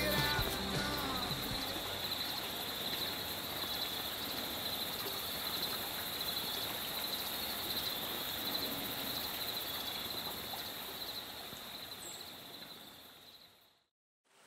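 Woodland ambience: a steady high-pitched chorus over a soft hiss, with the last notes of a country song dying away in the first second or so. It fades out to silence near the end.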